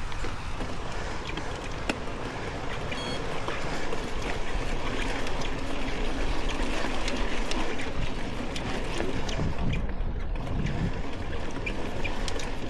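Mountain bike rolling over a dirt trail: steady tyre and trail noise with scattered clicks and rattles from the bike, and wind rumbling on the microphone.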